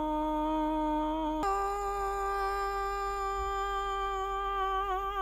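A woman's voice holding one long, unbroken sung note, very even in pitch, which jumps abruptly up to a higher held note with a click about a second and a half in; near the end the note begins to waver with vibrato.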